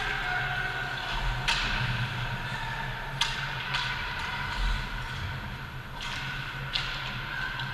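Ice hockey play: a few sharp clacks of sticks and puck on the ice, spread a second or more apart, over the steady hum of the rink.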